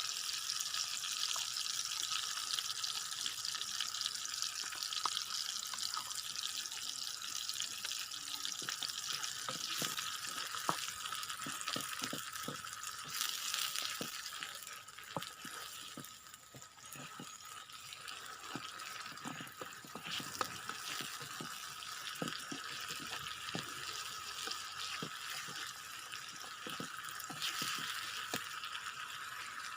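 Fried rice sizzling in a pan, with a steady hiss and frequent scraping and tapping clicks of a spatula as it is stirred. The sizzle dies down for a few seconds about halfway through, then picks up again.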